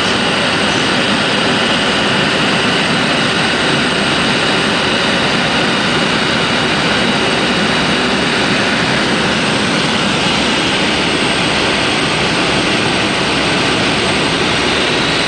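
Steady drone of a light propeller aircraft's engine and propeller with airflow noise, heard inside the cabin in flight.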